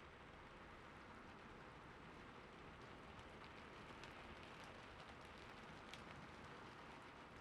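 Faint, steady rain falling on a surface, with a few sharper individual drops about halfway through.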